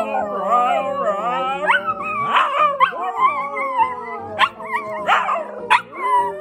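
Two huskies howling together, their overlapping howls wavering and gliding up and down, with a few short sharp yips in between.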